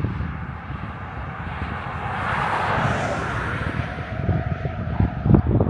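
2014 Subaru WRX STI's turbocharged flat-four engine running as the car drives back in, the sound swelling about halfway through and then settling into a steadier engine tone over a low rumble, with a few thumps near the end. The shop presents this as the car's normal sound.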